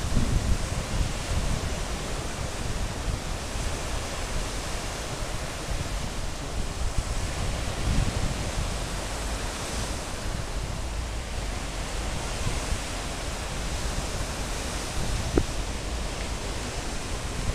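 Ocean surf breaking and washing up onto a sandy beach: a steady hiss of waves with uneven low rumbles from wind buffeting the microphone.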